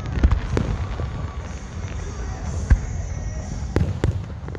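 Aerial fireworks shells bursting: a series of sharp booms, the loudest a little under three seconds in, over a continuous low rumble from the display.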